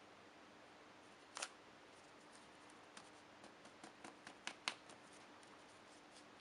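Filled paper cartridges being tapped and set down on a tabletop to settle the black powder, wad and ball inside: a few light, sharp taps, the loudest about a second and a half in and a pair close together about two-thirds through, over a faint steady hum.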